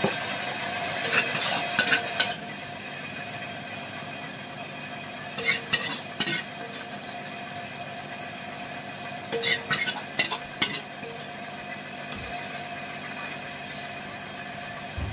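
A metal ladle scraping and clinking against a wok and a plate as fried food is scooped out, in three short clusters of clinks about a second in, around six seconds and around ten seconds, over steady background noise.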